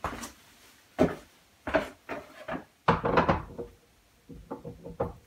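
A series of sharp knocks and clatter from metal parts and tools being handled and set down on a workbench, the loudest around three seconds in, then a run of lighter taps near the end.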